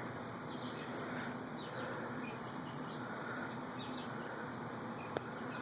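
Small birds chirping in short, scattered calls over a steady background hiss, with a single sharp click about five seconds in.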